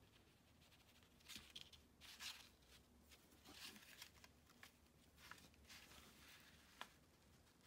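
Faint rustling of hand embroidery: wool yarn drawn through knitted fabric with a needle and the cardboard template being handled, in a few short swishes with one small click near the end.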